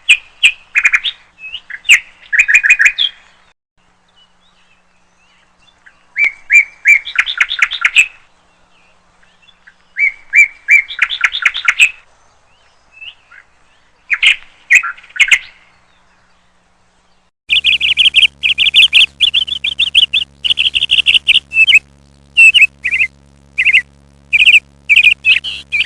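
A bird calling loudly in phrases of quick repeated chirping notes, a phrase every few seconds, then calling almost continuously in the last third. A steady low hum comes in underneath at that point.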